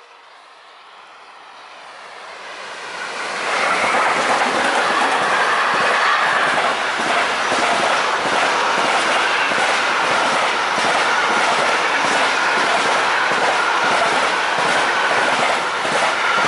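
An intermodal freight train of semi-trailers on pocket wagons approaches, growing louder over the first few seconds, then runs close past. There is a steady loud rush of wheels on rail with a rhythmic clickety-clack over the rail joints and a high wheel squeal running through it.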